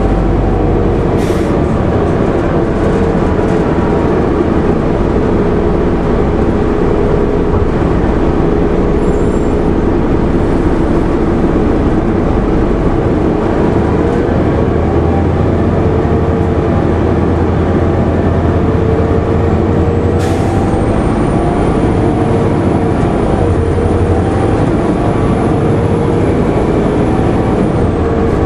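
Cabin sound of a 2001 Nova Bus RTS under way: its Detroit Diesel Series 50 inline-four diesel runs with its note rising and falling with speed over a steady road rumble. There is a sharp click about a second in and another about 20 seconds in, and a faint high whine starts just after the second click and stops shortly before the end.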